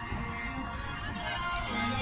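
Music playing at a moderate, steady level.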